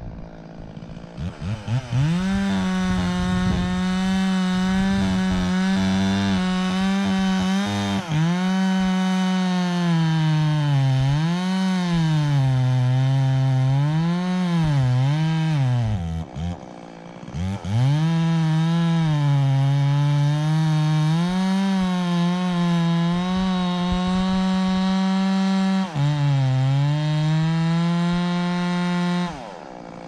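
Chainsaw cutting into the trunk of a large dead Douglas fir during felling: it revs up about two seconds in, its engine pitch sagging and recovering repeatedly under load. About halfway through it drops back briefly, then revs up and cuts again until it drops back near the end.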